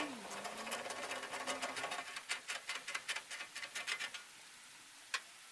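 Rapid, irregular small clicks and rattles of hands and tools at work on the belt drive of a McCormick International B46 baler while a new belt is fitted. The clicking dies down about four seconds in, and one sharp click comes near the end.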